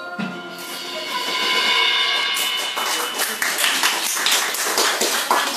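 The last notes of a small band's song ringing out, then a small group clapping hands from about three seconds in.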